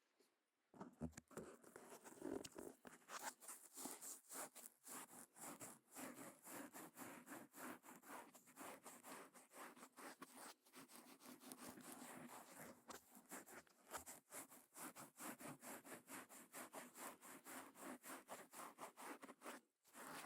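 Faint, quick scratching strokes at the ear of a KU100 binaural dummy-head microphone, several a second in a steady rhythm, as an ear-cleaning ASMR trigger. They start about a second in and pause briefly near the end.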